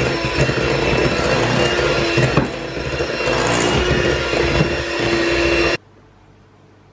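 A small electric kitchen appliance motor running steadily, then switched off abruptly near the end.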